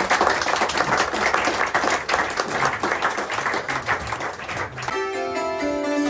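Audience applauding, then about five seconds in two Swiss hammered dulcimers (Hackbrett) start playing, with struck notes ringing on.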